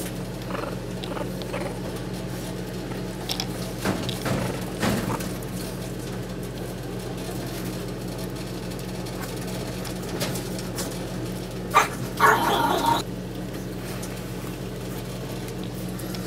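Chihuahua puppies playing, with scattered short sounds and one louder, brief pitched vocal sound about three quarters of the way through, over a steady low hum.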